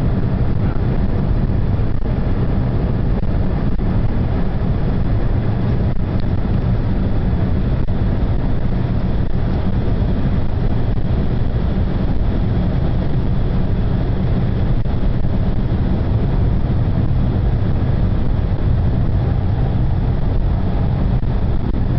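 Steady low rumble of a car's engine and tyres on the road at motorway speed, heard inside the cabin.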